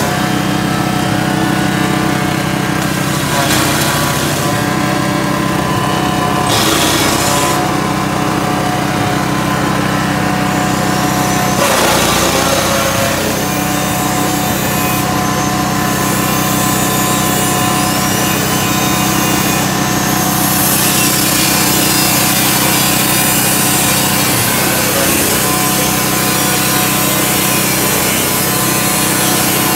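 YM3000 grass chopper running on its small petrol engine while cassava stems and leaves are fed into the blades. The engine runs steadily under a crackling chopping noise that comes in bursts, heaviest about seven and twelve seconds in and again from about twenty seconds on.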